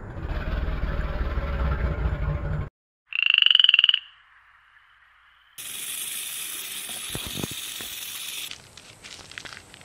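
A frog calling about three seconds in: one loud, high, rapidly pulsed croak lasting just under a second. Before it comes a low rumbling noise for a couple of seconds, and after it a steady hiss for about three seconds, then a few faint ticks.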